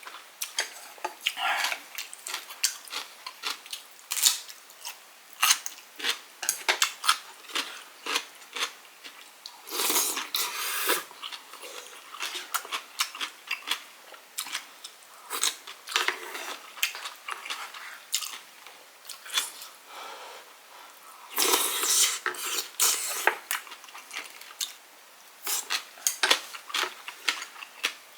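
Spoon and chopsticks clicking and clinking against a bowl of tteokguk (rice-cake soup) while eating, with chewing, in many small irregular clicks and a couple of busier clusters.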